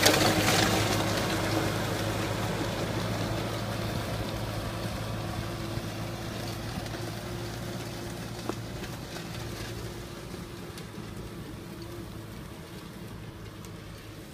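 Kubota tractor's diesel engine running steadily under load as it pulls a disc implement through the soil, fading gradually as the tractor moves away.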